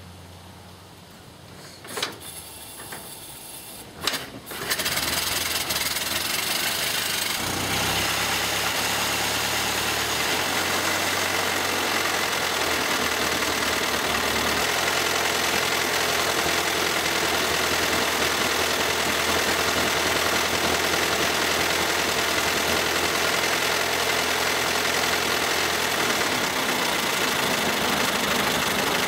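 Ford Model T's four-cylinder engine being hand-cranked, with a couple of brief clicks, then catching about four and a half seconds in and running steadily.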